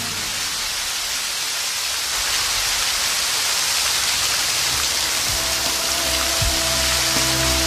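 Fountain jets splashing into a basin: a steady hiss of falling, spraying water. Soft background music sits under it and grows clearer about five seconds in.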